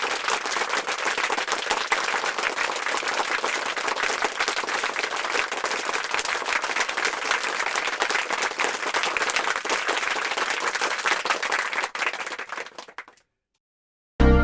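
Crowd applauding, a dense steady clapping that fades away near the end, followed by a moment of silence.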